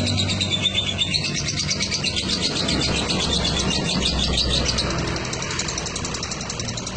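Lovebird singing a long, rapid chattering trill of high chirps, the 'fighter' song used as a master recording to lure other lovebirds into singing.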